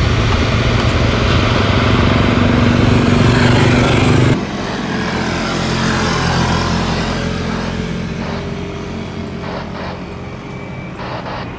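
Jet airliner engine noise: a loud, dense roar that cuts off abruptly about four seconds in, giving way to a quieter, steady rumble that slowly fades.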